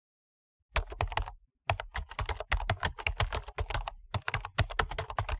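Computer keyboard typing: a short burst of rapid keystrokes, a brief pause, then a longer run of quick keystrokes, timed to text being typed out on screen.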